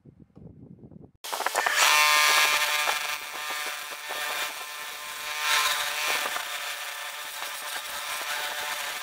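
Turning tool cutting into a spinning epoxy resin and jarrah bowl blank on a wood lathe: a rasping scrape with a ringing whine that starts suddenly about a second in and is loudest soon after. Before it, only a faint low rumble.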